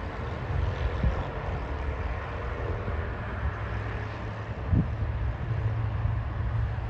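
A steady, distant low engine rumble, with a brief low thump about five seconds in.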